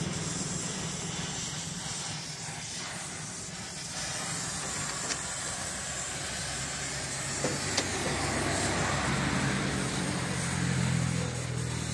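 Gas cutting torch hissing steadily over a low hum. A sharp click comes about five seconds in, and two more close together a couple of seconds later.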